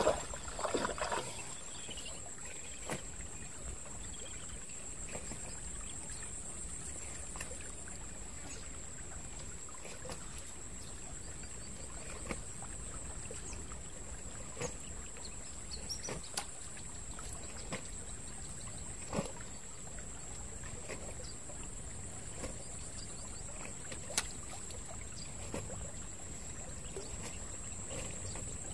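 Shallow pond water trickling and lapping steadily under a constant high-pitched buzz, with scattered faint clicks and taps now and then.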